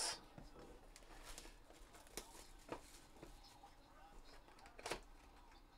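Faint handling of a sealed cardboard trading-card box: a few light knocks as it is moved about on the table, the last, near the end, the loudest.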